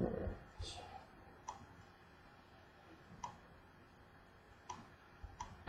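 Scattered single clicks of a computer mouse, about five of them spaced a second or more apart, faint.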